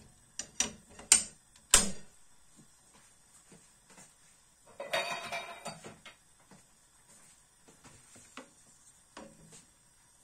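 Kitchen utensils knocking and clattering: a few sharp knocks in the first two seconds, a rustling clatter about five seconds in, then a few light taps.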